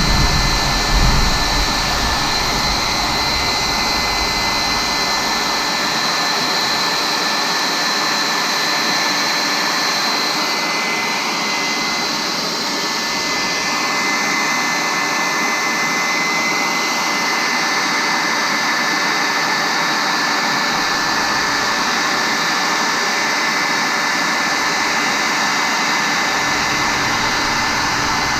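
Heat gun blowing a steady stream of hot air, its fan giving a constant whine over a loud rush, while heating the touchscreen bezel to soften the overlay's adhesive.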